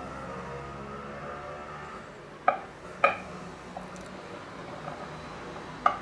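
Kitchen knife clinking sharply against a glass cake plate three times as it cuts down through a cream torte, each clink ringing briefly. A low background hum fades out about two seconds in.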